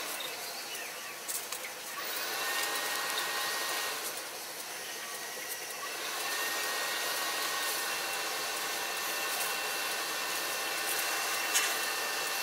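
Pellet grill's fan running steadily with its lid open, a whooshing hiss with a faint whine, and a couple of light clicks as fish pieces are lifted off the metal grate.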